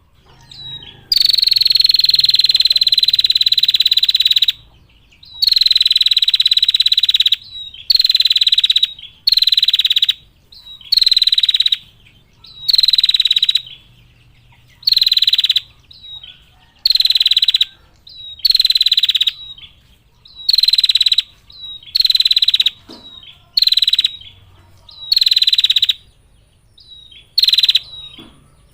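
Female prinia (prenjak) giving long, buzzy rattling trills over and over, about thirteen in all, each lasting one to two seconds, with short high chips between them.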